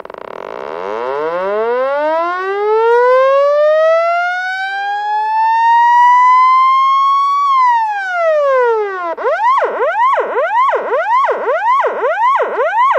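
Police siren sounding loudly: one long wail that rises slowly for about seven seconds and drops quickly, then switches to a fast yelp sweeping up and down about two to three times a second.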